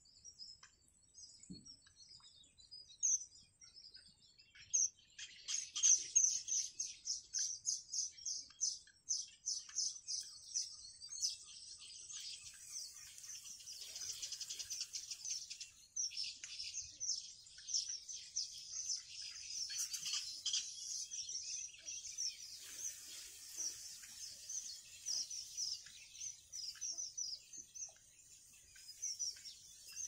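Yellow bittern chicks in the nest peeping: short, high-pitched cheeps, several a second, sparse at first and near-continuous from about five seconds in.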